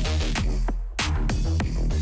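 Electronic music with a heavy bass line and a steady beat, dipping briefly about a second in.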